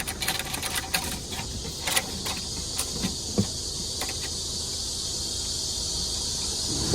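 Scattered light clicks and small metallic knocks as a fastening hook and tie-down strap are handled and threaded through a ring, dying away after about four seconds and leaving a steady hiss.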